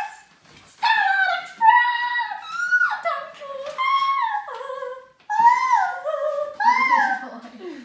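A girl singing in a very high voice, holding short notes and sliding from one to the next in a string of playful phrases.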